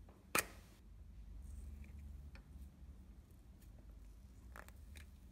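Slime being handled by hand: one sharp, crackly pop about half a second in, then faint soft clicks and squishes near the end.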